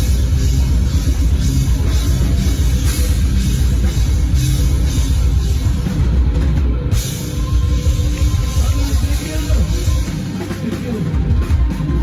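Rock band playing live, with a drum kit to the fore over a heavy, dense low end.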